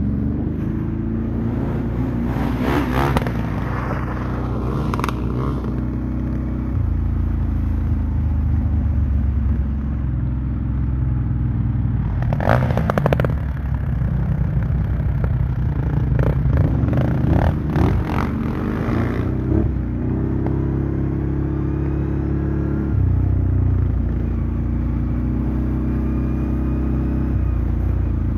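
Off-road engine of a quad bike or motorbike running under way, its pitch stepping up about a quarter of the way in and back down near the end. Several short bursts of clatter and scraping come through over it.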